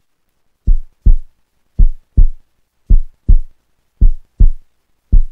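Heartbeat sound effect: low double thumps, lub-dub, repeating steadily about once every 1.1 seconds.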